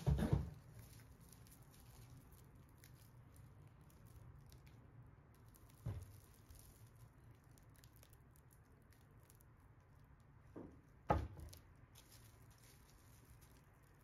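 Plastic-wrapped cosmetic bottles being handled and set down on a table: a thud at the start, another about six seconds in, and two close together near eleven seconds. Light rustling and crinkling of the plastic wrap runs between them.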